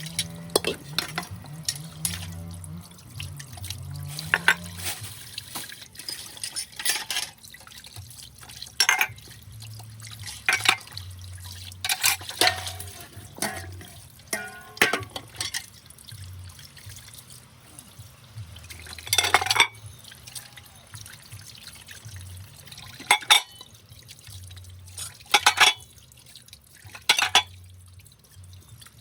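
Dishes being washed by hand in a sink: water splashing and dripping, with plates knocking and clinking at irregular moments, the loudest clatter about two-thirds of the way through.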